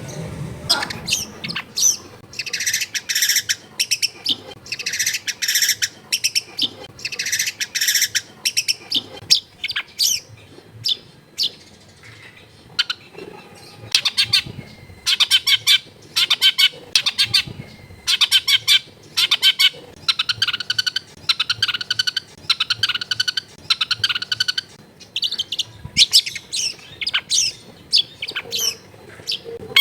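Long-tailed shrike (cendet) singing: harsh, scratchy chattering mixed with quick runs of short repeated notes, continuing without a break.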